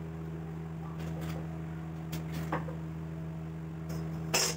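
Quiet workshop room tone: a steady low electrical hum, with a few light taps and a short scraping rustle near the end.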